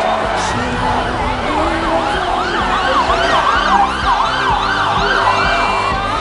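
Emergency vehicle siren sounding a fast yelp, its pitch rising and falling about two to three times a second.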